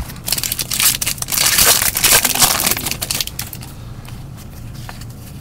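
Trading cards being handled and shuffled, with rustling and crinkling from card sleeves and wrapper and small clicks as cards are set down. It is busiest in the first three seconds, then quieter.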